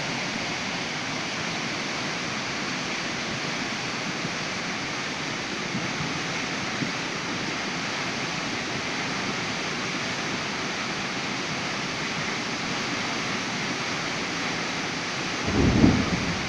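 Steady rushing of a swollen, flooding river (the Meléndez) overflowing its banks. Near the end a short, louder low rumble cuts in over the water noise.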